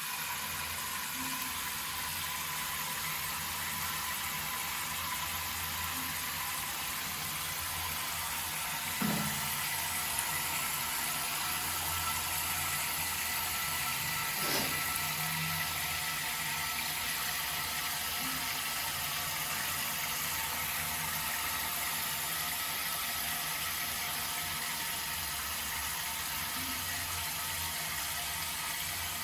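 Steady hiss of running water over a low hum, with two brief sounds about nine and fourteen seconds in.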